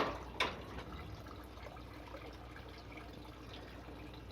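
Faint steady trickle of water from the aquaponics system, with two quick knocks about half a second apart at the start.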